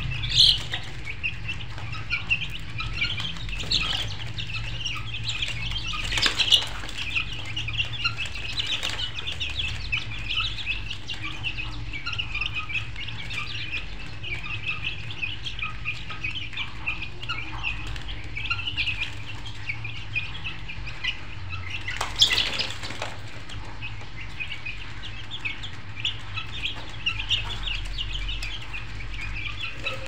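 A flock of birds chirping in a dense, continuous chorus over a steady low hum, with a few louder sharp sounds about half a second in, around six seconds and around 22 seconds.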